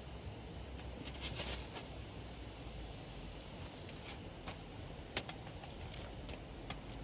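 Campfire wood crackling: irregular sharp pops, with a quick cluster of snaps about a second in, over a steady low rumble.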